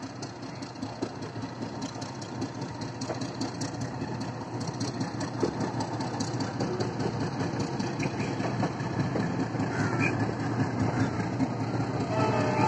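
Indian Railways passenger train rolling slowly through a yard, heard from on board. A steady rumble of the running gear with a rapid patter of wheel clicks over rail joints and points grows a little louder, and a brief high-pitched squeal comes near the end.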